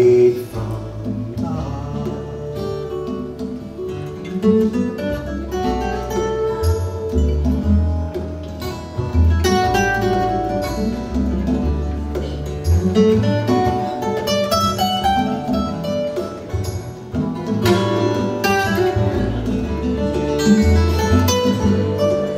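Acoustic guitar music played back over hi-fi loudspeakers in a demonstration room, with a steady run of plucked notes.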